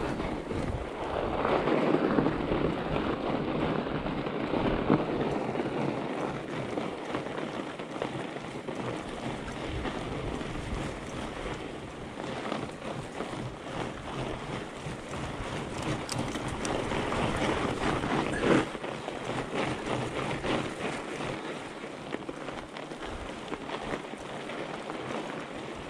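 Fat bike's wide knobby tyres rolling and crunching over snow, a continuous crackle with wind rumble on the microphone early on. There is one sharper knock about two-thirds of the way through.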